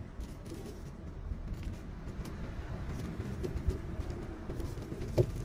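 Lemongrass stalks and herb leaves being placed into an aluminium pot, with one sharp knock near the end, over a low steady rumble.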